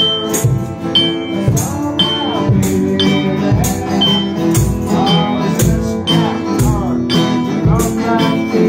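Acoustic guitars strumming a song together while a man sings, over a low beat about once a second.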